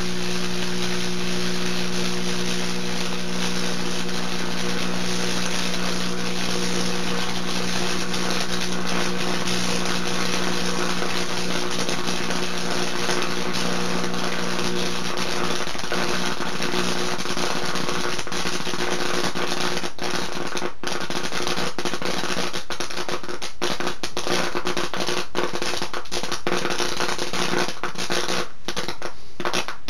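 A pickle electrocuted on mains current through two fork electrodes, buzzing with a steady electrical hum under a loud sizzling hiss as it glows. The hum fades about halfway through, and sharp crackles and pops grow more frequent towards the end.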